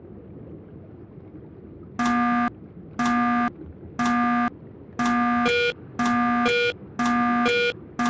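A low steady hum, then from about two seconds in a pitched electronic beep sounding once a second, each about half a second long. From about five seconds in, a shorter, higher beep sounds between them.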